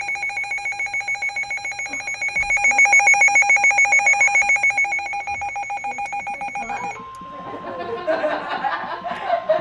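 NOAA weather radio receiver sounding its alert alarm for a flash flood warning: a loud, rapid pulsing electronic beep for about seven seconds. Then the steady weather-radio warning tone starts, with voices chattering around it.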